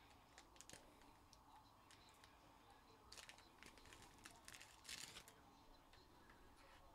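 Faint handling noise: a few seconds of brief crinkling, scratching rustles in the middle, with scattered small clicks.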